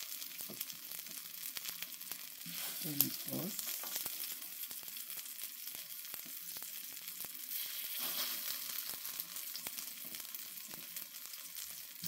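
Plantain slices frying in shallow oil in a stainless-steel Saladmaster electric skillet: a steady sizzle with many small crackles, and one sharper click about three seconds in.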